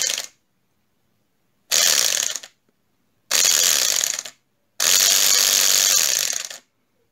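Small electric compressor's motor spinning its gear and crank with the pump head off, in short bursts each time its power lead is touched to the battery: three runs, the last about two seconds long. The gear train has a fairly big play in the crown wheel and metal particles inside.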